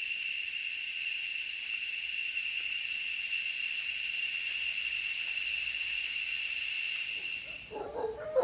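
Steady, high-pitched insect drone: one unbroken tone over a hiss. Near the end it cuts off and lower, repeated animal calls begin.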